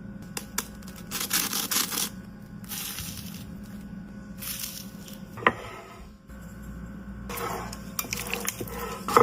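Kitchen food-preparation handling noises: several bursts of crinkling and rustling, with a few sharp clicks and a knock about five and a half seconds in.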